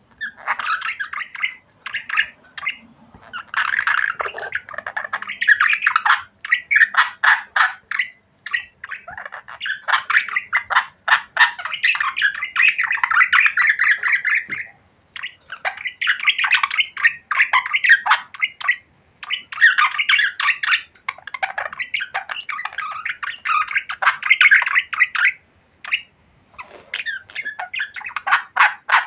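Budgerigars chattering: a near-continuous run of rapid chirps, warbles and squawks, broken by a few brief pauses.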